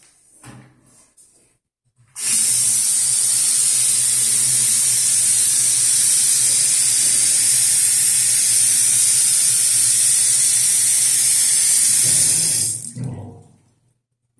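A loud, steady hissing rush like running water or a spray, with a low hum beneath, starting about two seconds in and cutting off near the end.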